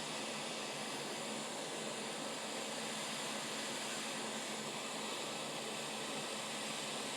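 Hot air rework station blowing a steady hiss of air while desoldering a shorted MOSFET from a laptop motherboard.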